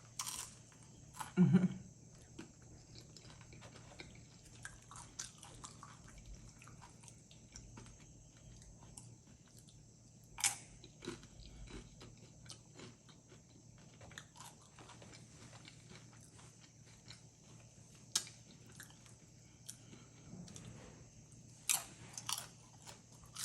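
Close-miked eating of beef nachos: tortilla chips crunching under bites, with wet chewing between them. Several louder crunches come at irregular moments among many small clicks.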